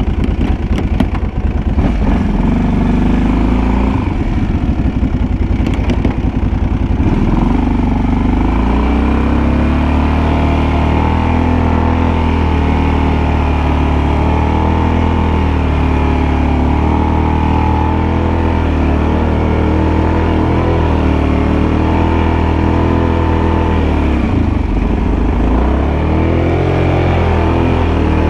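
Kawasaki Brute Force 750 ATV's V-twin engine running under way through the snow. For the first several seconds the note is uneven and pulsing, then it settles into a steady drone. The revs sag briefly and pick up again near the end.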